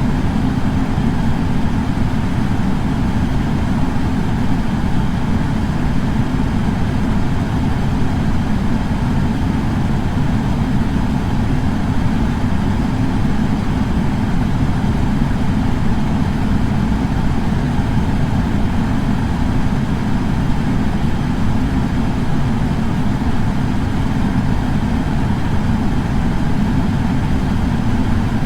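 Air purifier fan running steadily: a constant low rush of air, heaviest in the low end, with a fainter hiss above it.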